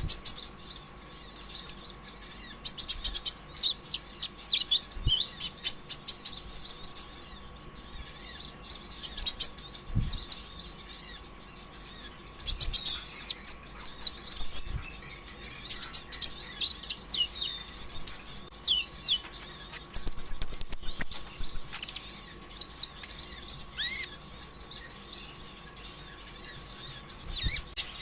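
Konin (kolibri ninja), a sunbird, singing a rapid, high-pitched chattering song of sharp chirps and trills in bursts of a few seconds at a time. A faint steady hum runs underneath.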